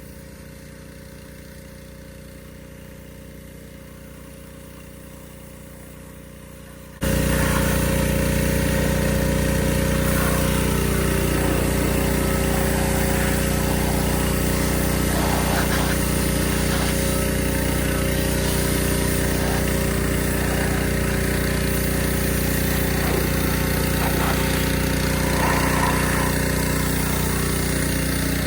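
Pressure washer running: a faint steady hum at first, then about seven seconds in the sound jumps suddenly to a loud, steady machine drone with a rapid pulsing underneath and a hissing spray on top.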